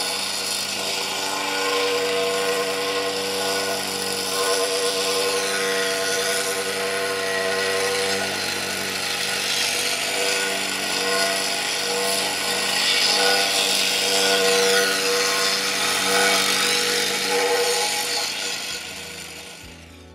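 Vibrating plate compactor running steadily as it is walked over a fresh gravel path, its engine and vibrating plate compacting the stone. The sound fades away near the end.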